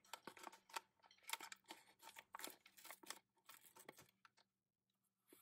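Scissors cutting open a thin plastic Lego minifigure blind bag: a quiet run of short, crisp snips with crinkling of the packaging, stopping about four and a half seconds in.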